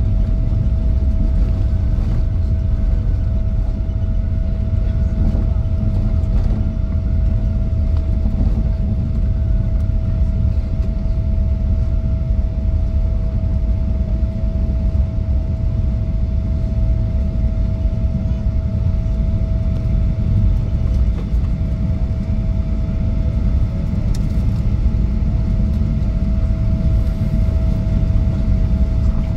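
Boeing 777-200ER cabin noise during the landing rollout: a loud, steady roar of engines and airflow heard from inside the cabin, with a steady whine above it.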